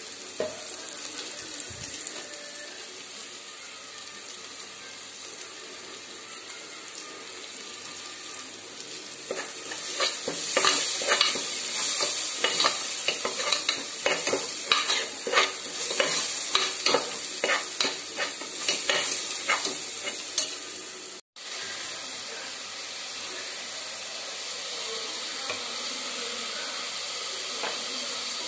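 Chicken gravy sizzling in a steel pot, a steady hiss. From about a third of the way in, a metal ladle stirs it, clinking and scraping against the pot in quick strokes for some ten seconds; after a split-second dropout the sizzling carries on alone.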